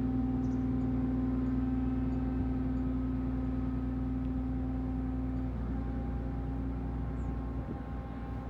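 Steady mechanical drone of the ferry Kogane Maru's engines and machinery, a low hum with several steady tones over it; the strongest tone drops out about five and a half seconds in.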